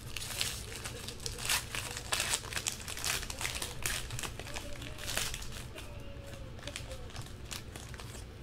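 Foil wrapper of a trading-card pack being torn open and crinkled by hand, a quick run of sharp crackles that eases off after about five and a half seconds.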